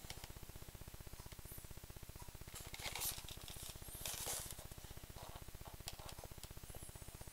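Faint rustles of a card record sleeve being handled, about three seconds in and again about four seconds in, over a low steady hum.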